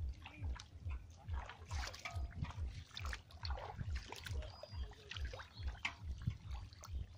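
Splashing and trickling in shallow muddy water as people wade barefoot and grab fish by hand. Underneath runs a low, regular thudding about three times a second.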